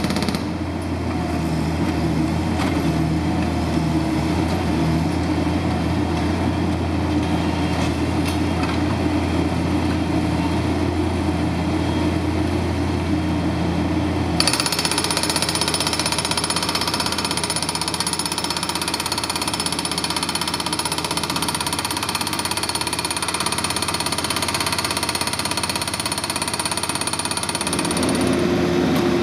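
Hydraulic breaker on a Bobcat MT52 mini track loader hammering concrete, over the loader's diesel engine running. About halfway through the sound changes abruptly: the engine hum drops away and the hammering turns harsher and higher. The hum returns near the end.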